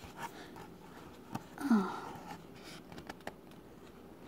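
A quiet room with faint handling noise and a few small clicks, and one short, low vocal sound falling in pitch about a second and a half in.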